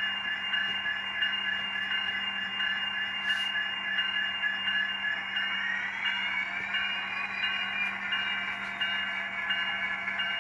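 Diesel locomotive sound from the ESU LokSound V5 micro decoder, played through the small speaker of an N-scale Kato MP36PH model: the prime mover runs steadily, then revs up, rising in pitch about five to six seconds in, as the model begins to move.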